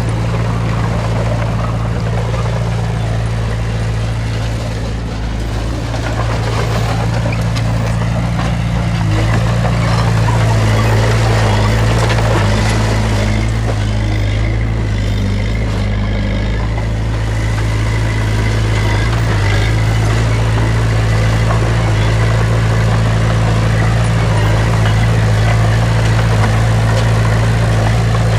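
Heavy diesel earthmoving machinery running steadily, with a deep, constant engine note; the pitch shifts up slightly about nine seconds in.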